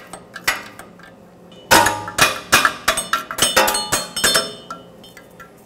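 Ratchet and crow's-foot oxygen sensor socket clicking and clinking in quick strokes, about three a second, as a downstream O2 sensor is unscrewed from the exhaust pipe.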